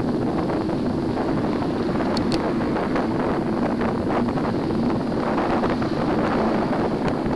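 Steady wind noise buffeting the microphone of a camera on a moving bicycle.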